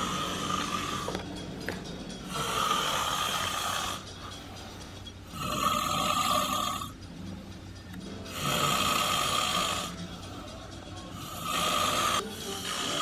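A man asleep on his back with his mouth open, snoring: about five long snores, one every three seconds or so.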